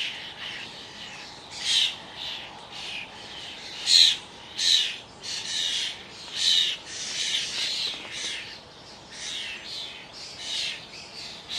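Starlings calling: a run of harsh, scratchy squawks and chatter, one after another every half second to a second, over the faint hum of a distant road.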